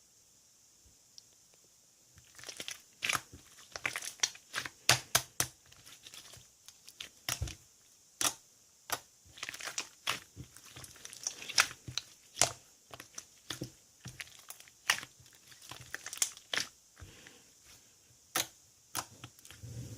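Slime being worked by hand: quiet for about two seconds, then an irregular run of sticky pops, clicks and crackles as it is pressed, stretched and folded.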